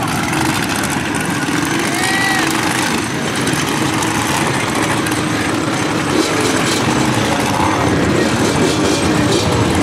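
Small off-road engines running steadily as a side-by-side UTV works in deep mud, with ATVs close by.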